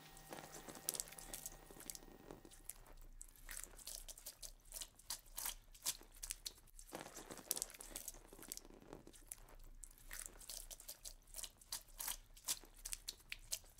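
Faint, irregular crackling and crunching clicks over a low steady hum, growing denser toward the end.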